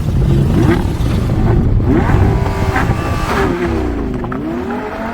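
Car engine revving loudly under acceleration, its pitch climbing and dropping several times.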